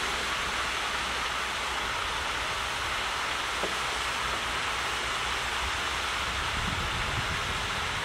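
Steady rush of flowing water, an even hiss that does not change.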